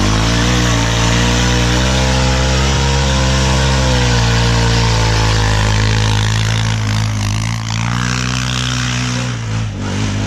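Honda Foreman ATV's single-cylinder four-stroke engine held at high revs as its tyres spin and plough through deep snow. The engine note wavers and drops away near the end.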